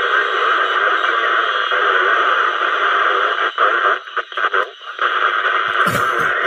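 CB radio on 27 MHz giving out steady static and interference through its speaker, with faint wavering traces of garbled signals in the noise, the sound squeezed into a narrow band as from a small radio speaker. The noise breaks up briefly a few times past the middle, with a couple of low knocks near the end.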